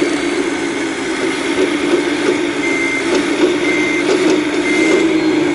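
Full-size excavator's diesel engine running steadily under work. Near the middle and end a high warning alarm beeps three times, about once a second, like a travel or backup alarm.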